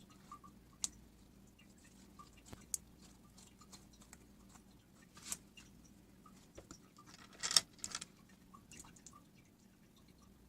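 Slime being handled, giving scattered small sticky clicks and squelches, with a louder crackly squish about seven and a half seconds in.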